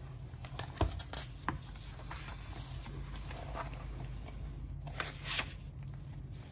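Paper pages of a spiral-bound sketchbook being handled and turned. There are two sharp taps around the first second, soft paper rustles, and two quick swishes about five seconds in, over a steady low hum.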